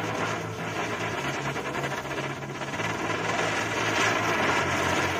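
Ground firework hissing and crackling steadily as it sprays a fountain of sparks, swelling briefly a couple of times.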